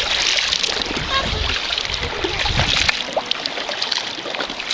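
Water splashing and sloshing around a canoe, with a low wind rumble on the microphone for the first second and a half.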